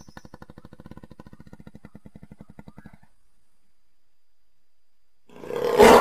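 Jaguar calling: a throaty pulsed rattle of about a dozen pulses a second lasts some three seconds, then after a pause a loud roar breaks out near the end.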